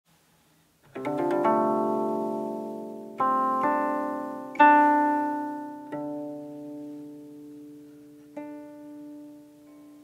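Guqin, the seven-string Chinese zither, plucked slowly: single notes and chords begin about a second in and follow every one to two seconds, each left to ring and fade. The strongest pluck comes about halfway, and a softer note rings out near the end.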